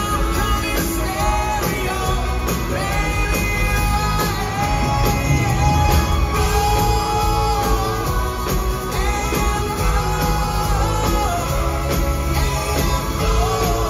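Live rock band playing: a male lead singer sings long, held lines over drums, bass guitar and keyboards, amplified through a concert sound system.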